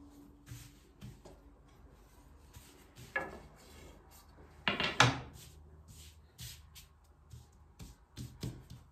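A thin sheet of börek dough is unrolled off a long wooden rolling pin and smoothed out by hand on a glass tabletop, making soft rustling and sliding sounds. A few sharper knocks, the loudest two about five seconds in, fit the wooden pin being set down on the glass.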